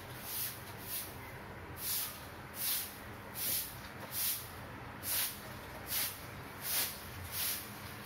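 Maspion orbit ceiling fan running at medium speed: a steady low hum with a regular whoosh of moving air about every 0.8 seconds.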